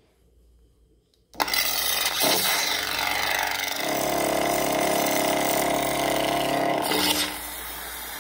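Lightsaber soundboard in a custom Ben Solo hilt playing through its speaker: a sudden loud ignition about a second in, then a noisy hum that drops to a quieter steady hum near the end.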